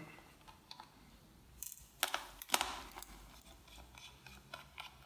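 Faint clicks and ticks of a small screwdriver working the battery screws in a Lenovo ThinkPad T460s. A few sharper clicks come about two to two and a half seconds in.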